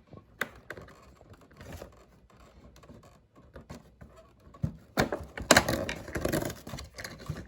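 Toy packaging being handled and opened: scattered light clicks and taps, then about five seconds in a loud crinkling rustle of wrapping lasting about two seconds.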